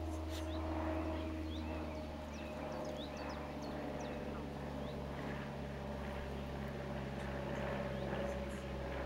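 A steady low machine hum with a thin steady whine over it, and scattered short bird chirps.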